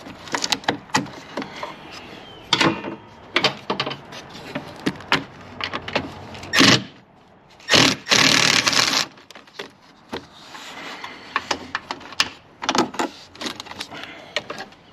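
Wrench and socket work on 10 mm bolts: repeated metallic clicks and knocks, with a power tool whirring briefly twice, a short burst about six and a half seconds in and a longer one about a second later.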